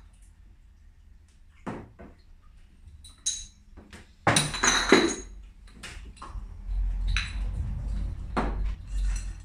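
Glass beer bottles clinking and knocking against each other and the work surface as they are handled for homebrew bottling. There is a run of separate clinks, some ringing briefly, a louder cluster about halfway through, and a low rumble in the second half.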